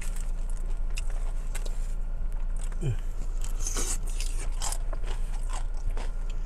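A person eating close to the microphone: chewing and crunching a mouthful of beef taco pasta shells, with scattered small clicks and mouth noises.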